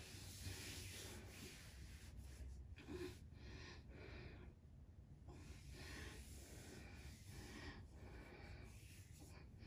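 Near silence: faint breathing close to the microphone, soft breaths every second or two over a low room hum.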